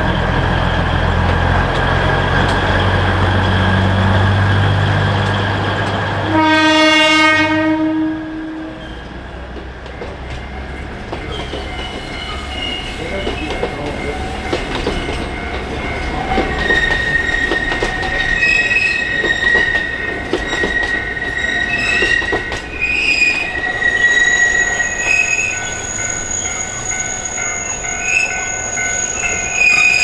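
Alishan Forest Railway train heard from aboard: the locomotive's low engine rumble, then a horn blast of about two seconds some six seconds in. After the horn the train rolls on with its wheels squealing in high steady tones on the curves and clicking over the rail joints.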